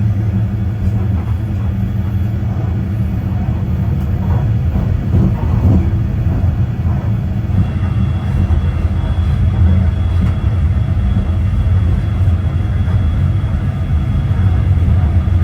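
Talgo passenger train running along the track, a steady low rumble with a faint thin high tone joining about halfway through.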